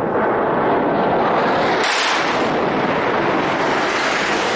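A large explosion, heard as a dense, steady roar with no single sharp bang. About two seconds in, a harsher, hissier noise sets in and runs on.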